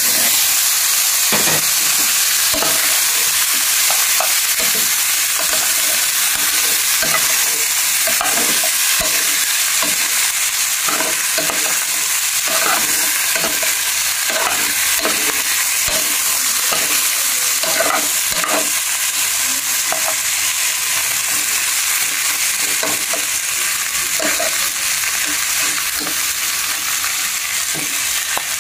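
Pieces of lechon (roast pork) sizzling in hot oil in a pot, a steady frying hiss, with the irregular scrapes and knocks of a metal spoon stirring them against the pot.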